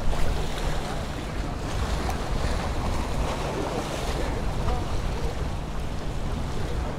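Gulf surf washing against the jetty rocks, with wind buffeting the microphone. A steady low hum runs underneath, fitting the portable Honda generator that powers the lights.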